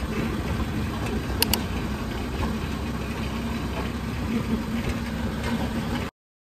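Tricycle's motorcycle engine running steadily on the move, heard from inside the sidecar, with two sharp clicks about a second and a half in. The sound cuts off suddenly near the end.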